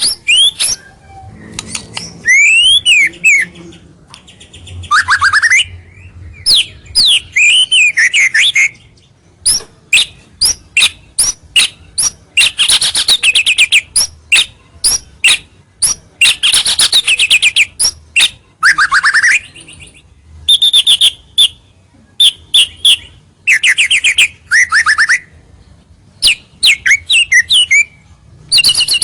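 White-rumped shama singing a loud, varied song: phrases of rapid ticking rattles, clear whistles and sweeping slurred notes, each a second or two long with brief pauses between. This is the vigorous 'gacor' song used as a lure to draw rival males close.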